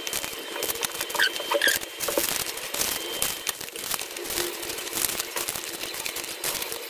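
Small plastic bags of beads crinkling and rattling as they are handled and packed into a plastic drawer. It is a rapid, irregular run of rustles and clicks, busiest about a second or two in.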